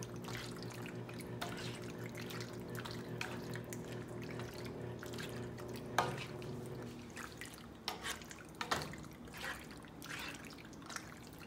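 A spoon stirring penne in a thick tomato sauce in a nonstick pan: soft wet squelching and scraping, with a few sharp knocks of the spoon against the pan, the loudest about six seconds in. A steady low hum runs under the first part and fades after about seven seconds.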